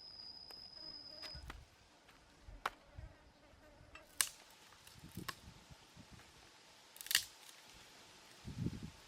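A steady high-pitched whine that stops about a second and a half in, then scattered sharp clicks and a few soft low thuds, the sounds of things being handled.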